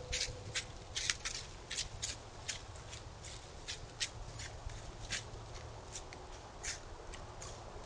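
Whitetail deer walking past the camera: a string of short rustling footfalls, two or three a second, on the forest floor.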